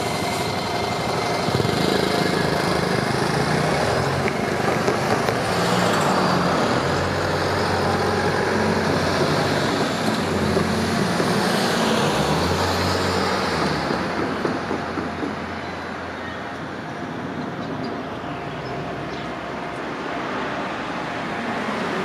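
Road traffic pulling away across a railway level crossing: motor-vehicle engines and tyres, with a motorcycle and cars accelerating and a minivan passing close about twelve seconds in. The crossing's warning bell is still sounding at the start. The traffic noise dies down in the second half.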